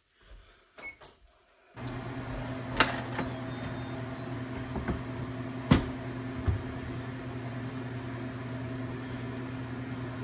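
Instant Pot electric pressure cooker lid being unlatched and lifted: a sharp click about three seconds in and a louder one near six, over a steady machine hum that starts suddenly about two seconds in.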